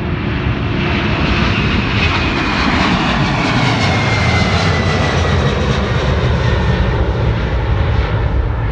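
Twin-engine UPS Boeing 767 freighter at takeoff thrust, lifting off and climbing out close by: a loud, steady jet rumble with an engine whine that slides down in pitch as the jet passes.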